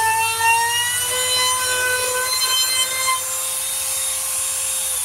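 Small laminate trim router with a half-round (roundover) bit running at full speed with a steady whine. For about the first three seconds it cuts into the edge of a scrap board, adding rough cutting noise. This is a test cut to check the bit depth.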